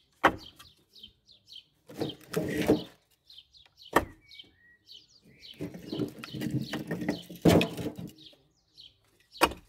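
Firewood logs knocking together as they are handled and stacked on a woodpile: four sharp knocks, with two longer stretches of scraping and rustling wood between them. Small birds chirp throughout.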